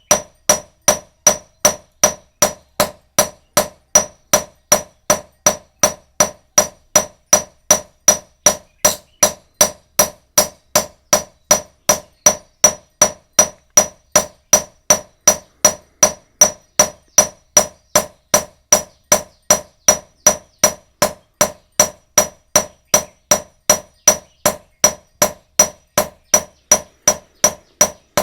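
Blacksmith's hammer striking iron on an anvil in a steady, even rhythm of about two to three blows a second, each blow leaving a short metallic ring.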